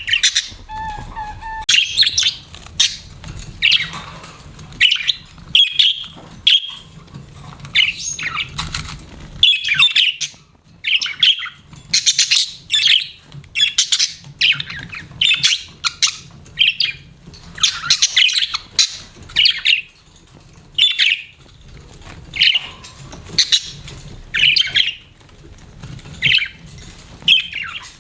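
Budgerigars chirping and squawking: a run of short, high calls, roughly one a second, with a brief pause partway through.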